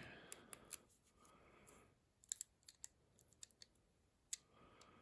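Faint, scattered small metal clicks of lock-picking tools working in a Commando padlock: about ten irregular ticks, with a soft rustle twice.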